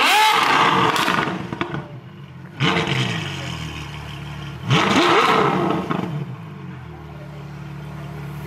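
Onyx F2X-kitted Ferrari F12's 6.3-litre V12 blipped three times while standing still, each a quick rise in pitch and a loud surge: at the start, about two and a half seconds in, and about five seconds in. After the third it settles to a steady idle.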